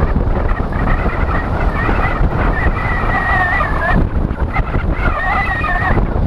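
Heavy wind buffeting on a helmet-mounted GoPro's microphone while riding a road bike at race speed. A wavering high-pitched tone runs for about three seconds, breaks off, and returns for about a second and a half near the end.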